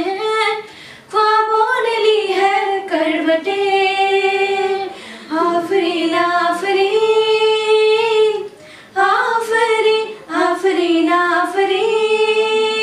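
Two young women singing unaccompanied in sung phrases with long held notes, broken by short pauses for breath.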